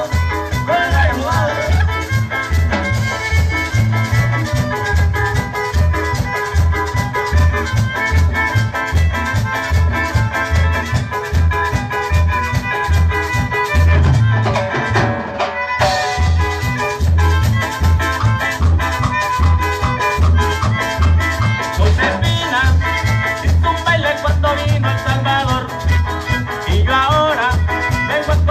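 Live chanchona band playing an instrumental passage: violins over guitars and a drum kit, with a steady bass beat. The upper end drops out briefly about halfway, then the full band returns.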